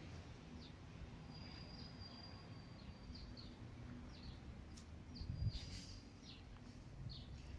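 Small birds calling faintly: many short, falling chirps and a couple of longer steady whistles, over a low background rumble. A short louder burst of noise comes a little past halfway.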